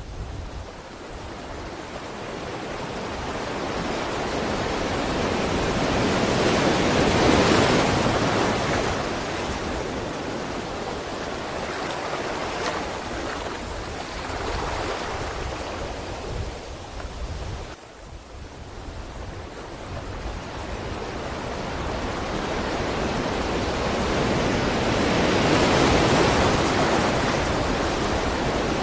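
Ocean waves washing ashore: the surf swells to a big wash about seven seconds in and again near the end, with a softer rushing stretch between and a brief lull just past the middle.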